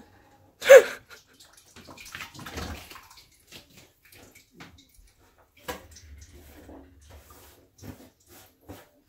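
Tap water running and splashing into a kitchen sink, with a loud brief clatter about a second in, then scattered knocks and clicks of kitchen work.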